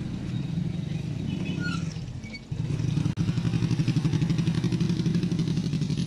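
A motorcycle engine running close by with a low, rapid putter. It dips briefly about two and a half seconds in, then comes back louder.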